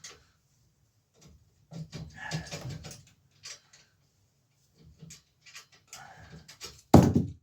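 Metal clicks and handling noises from a bicycle's rear derailleur being worked on and unbolted, ending with one loud clank about seven seconds in.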